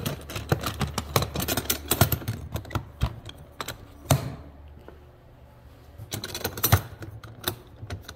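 Plastic clicks, knocks and rattles from the latches and lid of a Ridgid rolling toolbox being handled and snapped shut. A quick run of clicks fills the first few seconds, a single sharper knock comes about four seconds in, and a few more clicks follow near the end.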